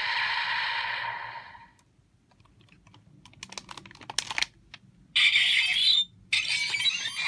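Electronic toy sound effects with light clicking: a hissy effect fades out over the first two seconds, scattered small clicks follow, and from about five seconds in two loud hissy bursts of sound effect play.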